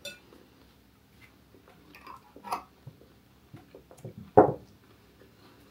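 Someone tasting chili sauce between remarks: scattered small chewing and mouth sounds with light clicks, and one short louder sound about four seconds in.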